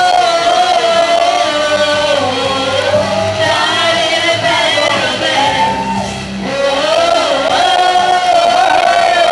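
A woman singing a pop song into a microphone over a karaoke backing track played loud through speakers, with a brief break in her vocal about two thirds of the way through.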